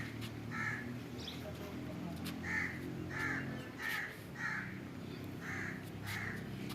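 A crow cawing repeatedly, about seven short harsh caws in a loose series.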